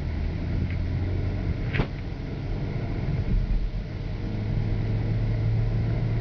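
Steady low drone of road and engine noise inside a 2010 Chevy Equinox's cabin at highway speed, growing a little louder about four seconds in, with one brief click about two seconds in.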